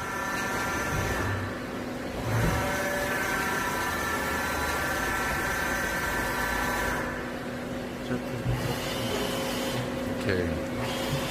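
Doosan Puma 600L CNC lathe running, its drives giving a steady multi-tone whine over a constant low hum; the whine cuts out briefly about a second and a half in and changes character around seven seconds in, as the machine's motion starts and stops.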